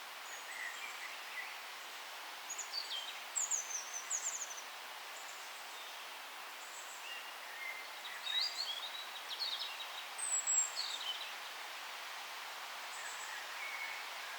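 Several forest birds chirping and trilling in short, high phrases over a steady background hiss, with two busier spells of calls, a few seconds in and again just past the middle.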